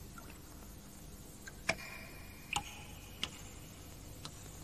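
Faint background hiss and low hum with four or five sharp, irregularly spaced clicks.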